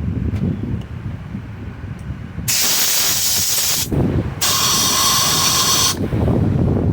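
Two hissing blasts of pressurized air, each about a second and a half long, cleaning a part of a Stihl MS 250 chainsaw.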